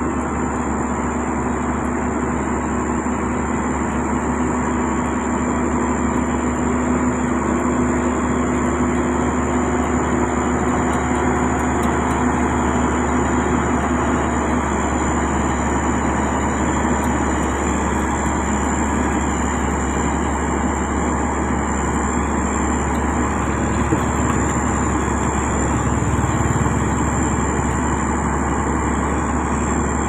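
Diesel engine of a heavy road-building machine running steadily, with a thin, steady high whine over the engine noise.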